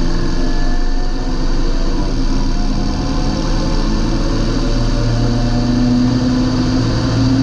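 John Deere 8320 tractor's six-cylinder diesel engine running steadily, its low hum growing stronger about halfway through.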